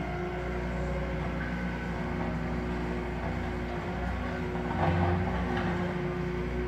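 Diesel engine of a Wacker Neuson 6503 wheeled excavator running steadily while its hydraulic arm swings a paver-laying clamp, with a brief louder burst of noise about five seconds in.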